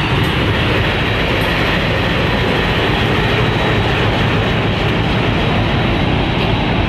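WDM-3D diesel-electric locomotive running light past at close range: steady loud engine and running noise with the clatter of its wheels on the rails.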